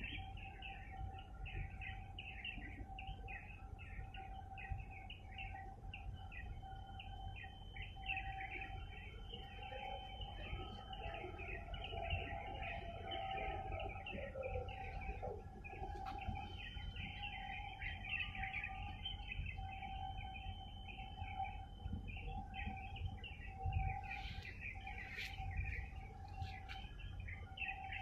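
Many small birds chirping and twittering without a break, over a steady hum and a low rumble.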